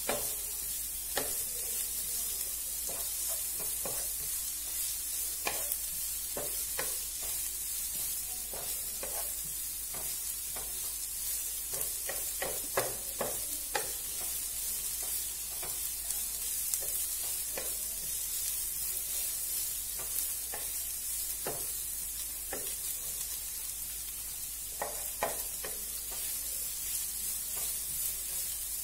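Sliced onions sizzling steadily in hot oil in a frying pan, with irregular scrapes and taps of a spatula stirring them, busiest about halfway through and again near the end.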